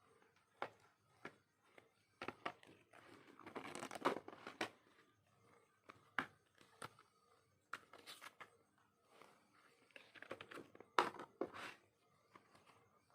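Packaging being handled during an unboxing: paper and plastic rustling and crinkling in two longer stretches, with scattered sharp clicks and taps between them.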